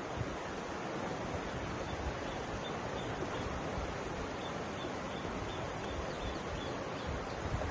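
Mountain river flowing: a steady rush of water, with some uneven low rumble.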